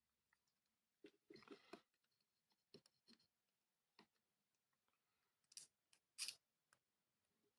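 Faint, scattered clicks and short rustles of hands handling small parts and tools on an electronics workbench while soldering, with the two sharpest clicks near the end.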